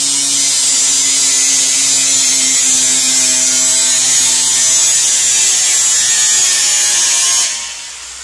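Angle grinder cutting sheet metal: a loud, steady high hiss with the grinder's motor hum beneath, tailing off near the end.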